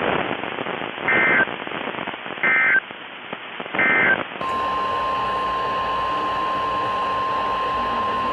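Three short EAS/SAME digital data bursts, the end-of-message signal, each a warbling two-pitch screech about a second and a half apart, over weather-radio static. About four seconds in the audio changes and a steady single-pitch alert tone sounds until near the end: the 1050 Hz NOAA Weather Radio warning alarm tone.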